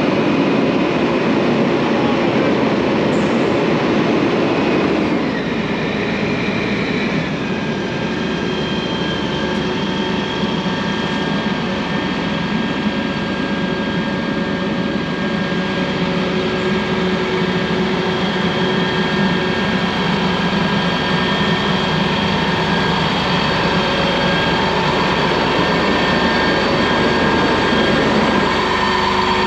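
Pierce ladder tower fire truck's diesel engine running to power the aerial's hydraulics while the boom and platform are deployed: a loud, steady mechanical drone with constant whining tones.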